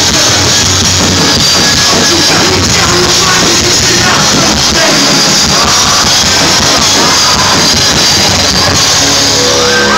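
Rock band playing live in a large hall, loud and full, with guitars, drums and some vocals, in the closing stretch of the song.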